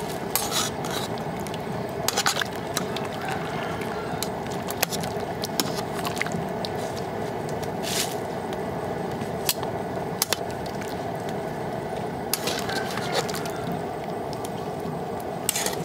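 Water boiling in a large aluminium wok, with splashing and dripping as whole eels are lifted out with metal tongs. Sharp clicks of the tongs against the pan come several times.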